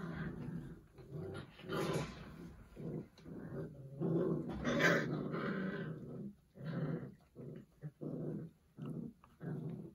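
A litter of six-week-old Doberman puppies growling and grumbling at one another in their pile, in a steady run of short sounds through the first half, then shorter separate ones, about two a second.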